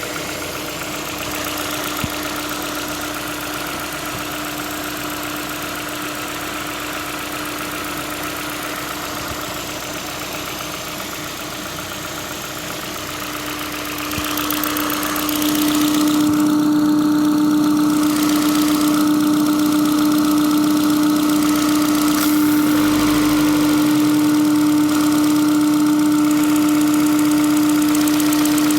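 1996 Ford Mondeo Mk2's 1.6-litre petrol engine idling with a knock from around the throttle body, whose cause the owner does not know. It runs steadily at one pitch with a steady tone, growing louder about halfway through.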